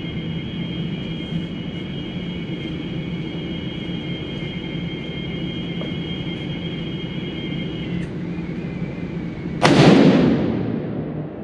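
A single rifle shot from a Savage 110 High Country in .30-06 Springfield near the end, echoing in an indoor shooting range and dying away over about a second and a half. Before it there is only a steady background hum.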